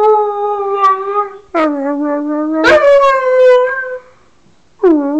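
Cocker spaniel howling: a long held note that ends about a second and a half in, then a second howl that starts low and steps up to a higher note, and a short swooping howl near the end.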